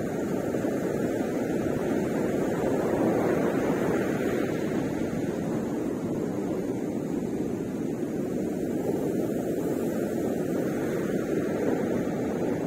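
Ocean surf breaking on the beach: a steady low roar of waves that swells and eases gently.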